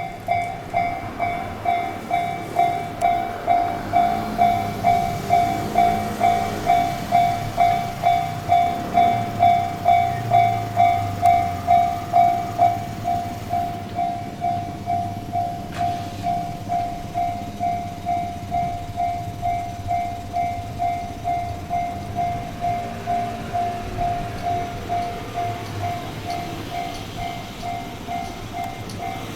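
Japanese railway level-crossing alarm ringing its electronic 'kan-kan' tone in a steady, unbroken repeating beat. Beneath it an electric train rumbles over the crossing, louder in the first half.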